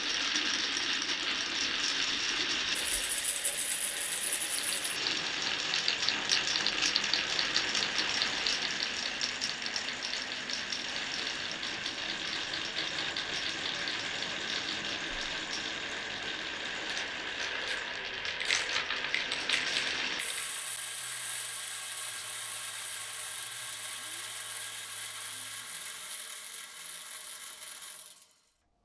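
Glass marbles rolling and clattering down a wooden marble run, a dense rattle of small clicks on wood. The rattle thins out about two-thirds of the way through and fades away near the end.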